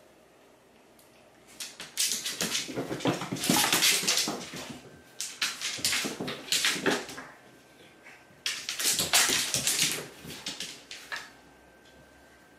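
Cats chasing and batting small glitter toy balls across a hard floor: rapid scrabbling paws and skittering balls, in three bursts of a few seconds each.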